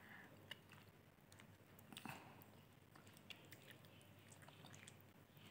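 Faint mouth sounds of a person eating soft buah malik fruit by hand: quiet chewing with a few small wet clicks, otherwise near silence.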